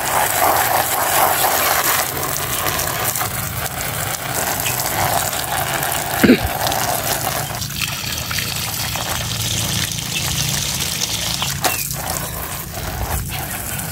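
Fine jet of water hissing from a handheld sprayer and splashing onto a wire bird cage and its plastic floor, the bath for a caged bird. One short sharp knock about six seconds in.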